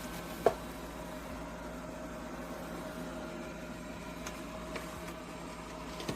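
Roomba 105 robot vacuum running with a steady motor hum as it heads back to its dock. One sharp click comes about half a second in, with a few faint ticks later.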